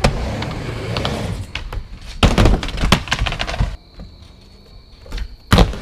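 Skateboard wheels rolling on a wooden mini ramp, then the board clattering and smacking against the ramp in a run of knocks about two seconds in. After a short lull there is one more sharp wooden clack near the end.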